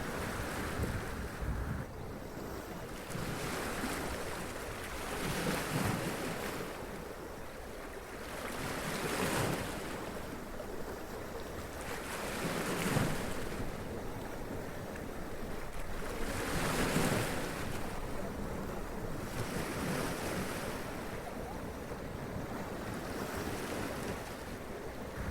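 Sea waves washing up onto rocks and splashing, one surge every few seconds over a steady rush of surf.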